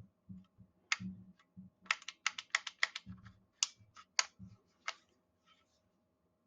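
Sharp metallic clicks and taps of steel pistol parts as the slide stop is fitted into a Sig P210-6's frame and slide, with soft handling knocks. A few scattered clicks, then a quick run of about six clicks around two seconds in, then a few more.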